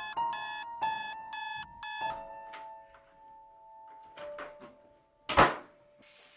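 Electronic alarm clock beeping about three times a second over soft, chiming music, stopping about two seconds in. About five seconds in comes one short, loud burst of noise, and a tap starts running into a sink near the end.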